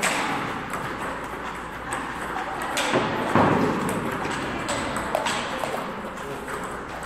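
Table tennis balls clicking off paddles and bouncing on tables, irregular sharp knocks from several tables at once, with a louder cluster about three seconds in.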